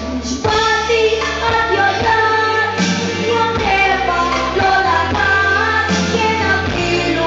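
A pop song: a voice singing a melody over band accompaniment.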